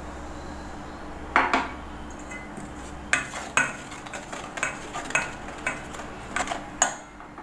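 A white plastic spatula stirring wheat flour and jaggery syrup in a stainless steel bowl, clacking and scraping against the bowl about twice a second. There are a couple of sharp knocks about a second and a half in.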